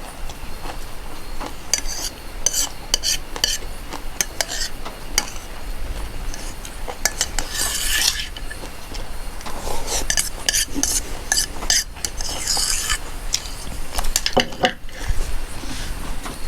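Spoon clinking and scraping against a dish while someone eats, an irregular run of short clicks and scrapes.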